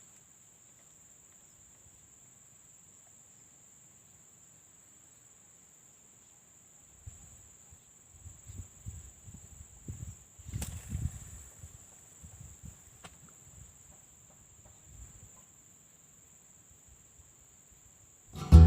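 Steady high-pitched drone of insects, with scattered low thumps and rumbles through the middle and one sharper knock partway through.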